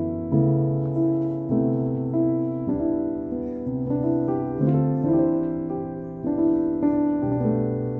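Slow, gentle background piano music, with a new chord or note struck about once a second and left to ring.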